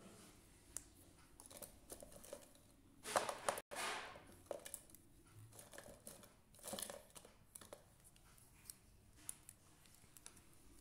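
Hands handling paper and drawing materials: rustling and light clicks, with the loudest burst of rustling about three seconds in and softer rustles and ticks after.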